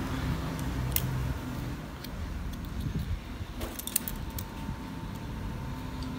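Small plastic and metal phone parts handled on a repair bench: a sharp click about a second in and a few more clicks and taps around four seconds, over a steady low hum.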